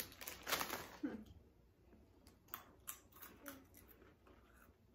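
Plastic snack bag rustling as it is handled, then crunching of thin poppy-seed pretzel sticks being bitten and chewed, heard as a scatter of sharp crisp clicks.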